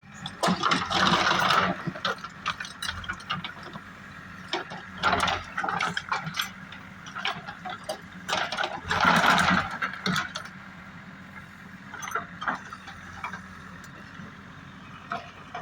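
JCB 3DX backhoe loader's diesel engine running, with a rattle and three loud surges: about a second in, around five seconds and around nine seconds.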